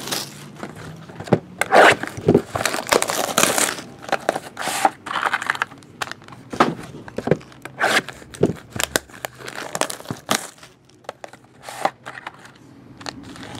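Foil-wrapped trading card packs crinkling as they are handled and stacked, with cardboard card boxes being moved, giving irregular rustling and scattered taps and knocks. The crinkling thins out over the last few seconds.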